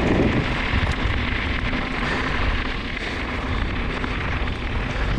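Hardtail mountain bike rolling along a gravel track: a steady noise of the tyres on gravel, mixed with wind rushing over the camera's microphone.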